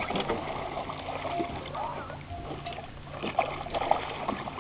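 Water splashing and sloshing as a dog wades or swims after a shot fish.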